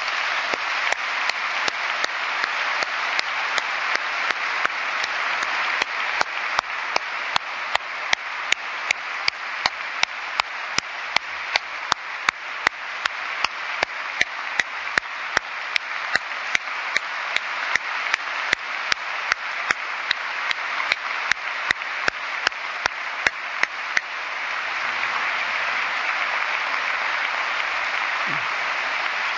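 Large audience in a hall applauding steadily, with sharp single claps standing out about two to three times a second for most of the time; near the end only the even wash of applause is left.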